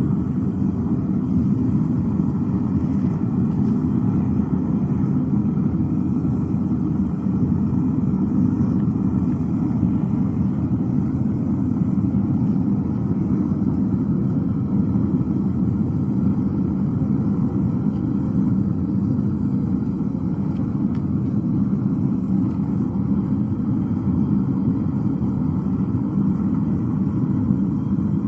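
Homemade gas-jet burner firing a small foundry furnace: a steady, low rumbling rush that holds level without a break.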